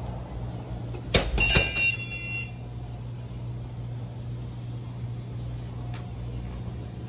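A steady low hum, with a quick cluster of sharp knocks that ring briefly about a second in.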